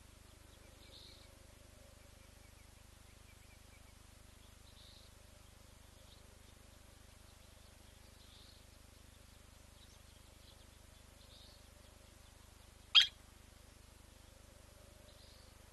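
Faint soft bird calls every three to four seconds, then one loud, very short, sharp call about thirteen seconds in: the metallic 'tink' of a blacksmith lapwing.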